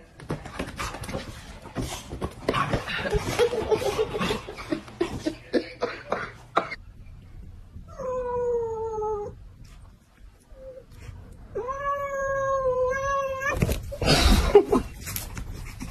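Young calico cat crying at a hand held over it: a short, slightly falling meow, then a longer yowl of about two seconds, followed by a loud burst of scuffling noise as it lunges. Before that come a few seconds of rustling with small knocks.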